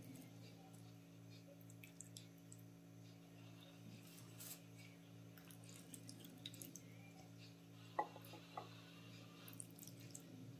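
Faint clicks and soft scrapes of a wooden spoon serving stewed chickpeas from a clay pot onto a ceramic plate, with one sharper click about eight seconds in, over a steady low hum.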